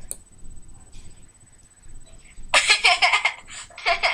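A girl laughing, in a loud fit of rapid giggles about two and a half seconds in and a shorter burst near the end.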